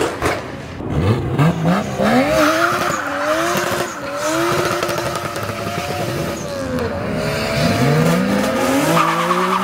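Lexus SC coupe doing a burnout: its engine revved hard and let fall again several times, with tyre squeal. Near the end a second car's engine runs steadily close by.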